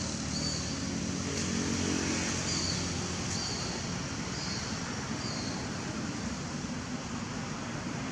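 A motor vehicle's engine running, a steady low hum that swells about two seconds in and then eases off. About five short high chirps sound over it.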